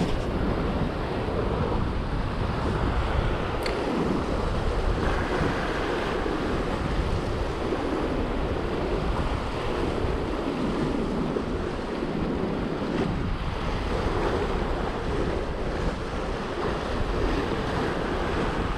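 Sea surf washing over coastal rocks, a steady rush, with wind buffeting the microphone.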